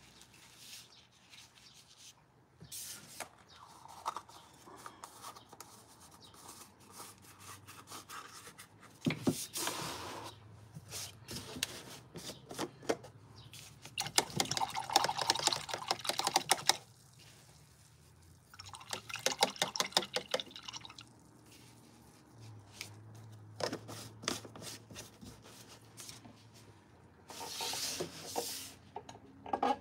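Tabletop handling noises from painting materials: a stretched canvas shifted on the table and a plastic paint container picked up. Irregular rustling and clicking comes in bursts, with two longer busy stretches in the middle and a short hiss near the end.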